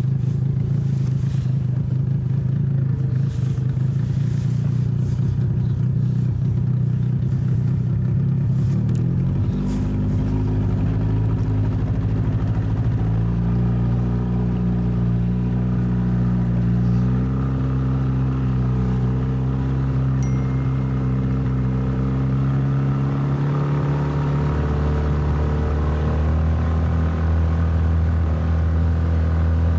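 An engine running steadily, its hum shifting to a new pitch in steps several times: about a third of the way in, near the middle, and again late on.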